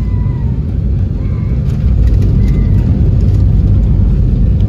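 Cabin noise inside an Embraer E175 rolling on wet pavement after landing: a loud, steady low rumble from the engines and wheels. It grows slightly louder about two seconds in.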